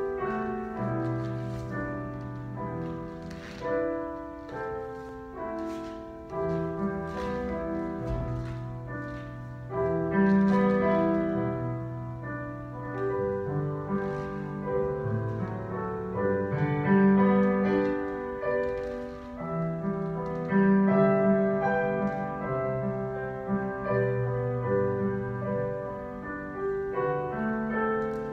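Solo piano playing slow, sustained classical chords: ballet class accompaniment for pliés at the barre.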